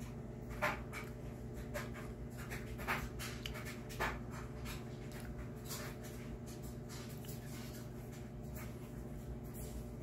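Steady low hum with scattered soft scratches and a few light clicks, the loudest about a second in, near three seconds and at four seconds.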